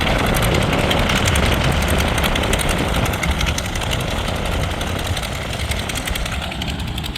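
Aircraft engine noise of a plane departing, loud and slowly fading.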